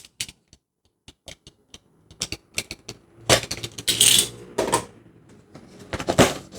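Paper-and-cardboard toy packaging being handled and opened by hand: scattered clicks and taps, with bursts of paper rustling about three seconds in and again near the end.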